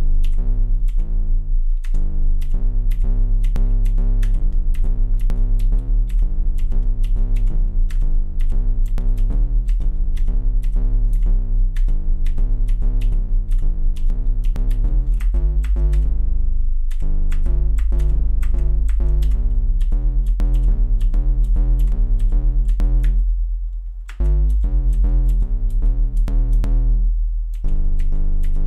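Home-made software synthesizer playing simulated plucked-string tones, built from a drawn string shape by a discrete Fourier transform and played from a computer keyboard: deep bass notes and higher notes in a beat-like pattern. Sharp clicks fall among the notes, the pops the program makes when a released key cuts its output to zero at once.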